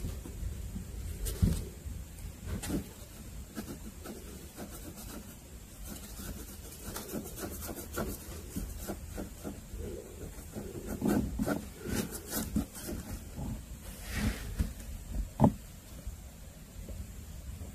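Cardboard and paper rustling and scraping as a kitten moves about in a cardboard-box shelter, with scattered light clicks and a few louder knocks.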